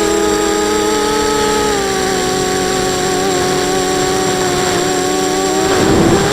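Eachane Racer-250 FPV racing quadcopter in flight: its motors and propellers give a steady, high whine that drifts slightly in pitch with throttle, turning rougher and noisier for a moment near the end.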